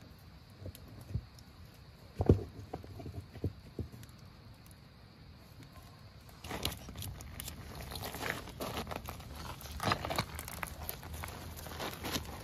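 Wood campfire crackling and popping, with a few separate knocks of wood in the first half. The crackling becomes much denser and closer about six seconds in.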